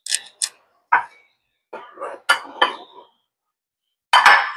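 Cleaver chopping cooked offal on a plastic cutting board: two sharp chops, a single knock, then a quick cluster of chops, and a louder, longer burst near the end.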